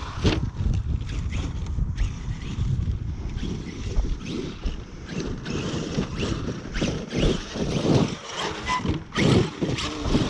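Arrma Kraton 8S electric RC truck, fitted with a Hobbywing 5687 1100 kV brushless motor, being driven over rough, rocky ground, running in uneven surges with scattered knocks. Wind buffets the microphone.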